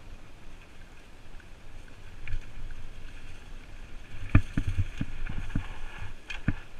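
Mountain bike descending a dirt trail strewn with dry leaves and stones, its tyres rolling with a steady rumble. Past the middle comes a quick run of knocks and clatter as the bike hits bumps, then one more knock near the end.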